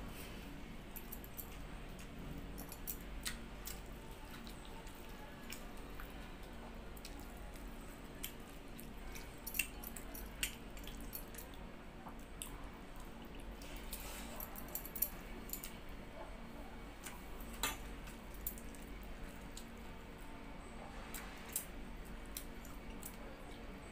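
Eating pakhala, rice soaked in water, by hand from a steel bowl: scattered small wet squishes, drips and clicks as the fingers scoop and squeeze the rice, with chewing, over a steady low hum.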